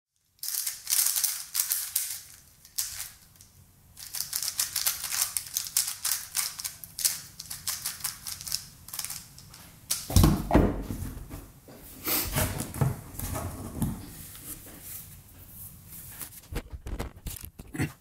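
3x3 speedcube being turned quickly by hand: rapid, uneven plastic clicking of the layers turning, with a few dull knocks against the table about ten seconds in.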